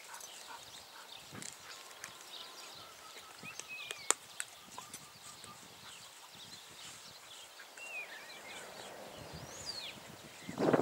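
Wild birds chirping in short sliding calls, over scattered small clicks and rustles of gear being handled, with one sharp click about four seconds in and a louder rustle right at the end.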